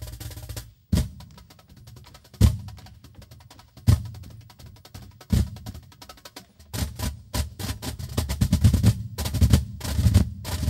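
An ensemble of cajóns slapped by hand. The playing stops suddenly just under a second in, then single loud accented strikes come about every one and a half seconds over soft quick taps. About two-thirds of the way in it breaks into fast, dense playing together.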